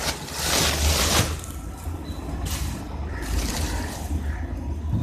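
Plastic wrapping crinkling and cardboard rustling as a boxed induction cooktop is unpacked from its shipping carton. The crinkling is loudest in about the first second, then goes on more softly over a steady low rumble.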